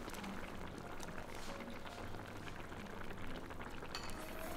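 Hot pot broth bubbling at a steady boil, with small scattered pops and clicks.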